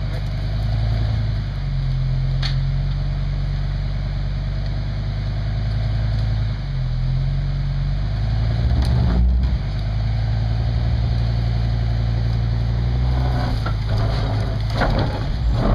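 Heavy vehicle engine running steadily at low revs as it pulls forward slowly to drag the strapped building off the lowbed trailer. A few sharp knocks, about a second apart near the end.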